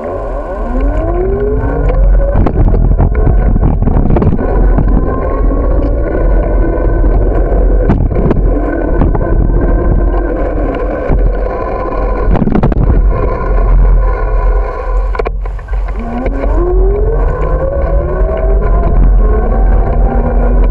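The small engine of a motorbike running under way, its pitch rising as it speeds up at the start and again about three-quarters of the way through, over a constant low wind rumble on the microphone.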